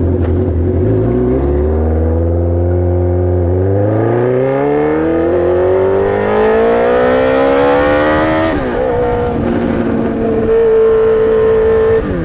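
Kawasaki Z1000's inline-four running through loud Danmoto XG-1 slip-on mufflers, accelerating under way with its pitch climbing in steps for several seconds. About eight and a half seconds in the pitch drops sharply, and the engine settles to a steady cruise.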